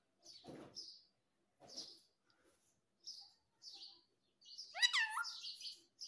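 Indian ringneck parakeet giving short high chirps and a few harsh chattering calls, with one loud rising whistled call about five seconds in.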